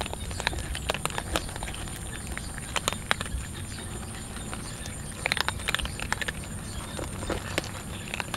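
Several cats crunching dry kibble: quick, irregular crunches and clicks, busiest about five seconds in, over a low steady background rumble.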